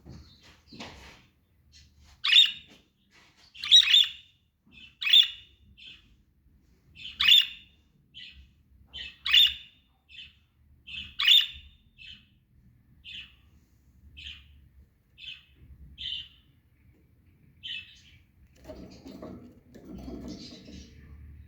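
Budgerigars giving short, sharp chirping calls about once a second, loudest in the first half and softer toward the end. A low rustling comes in near the end.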